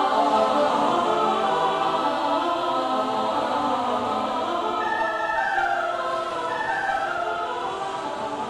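Choral music: voices holding long, slowly shifting notes with no beat, gradually getting quieter.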